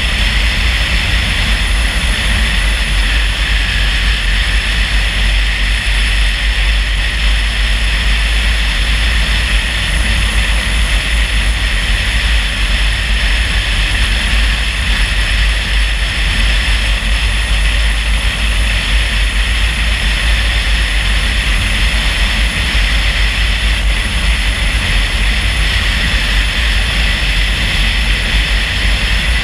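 Steady rumble of a car driving on the road, deep and even, with a constant hiss of tyre and wind noise over it.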